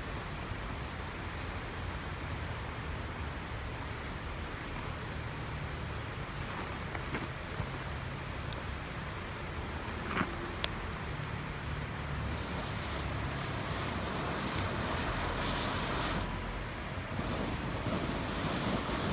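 Loud, steady rush of a waterfall, with a few sharp pops and crackles from a wood campfire burning on bare ground, the clearest about ten seconds in.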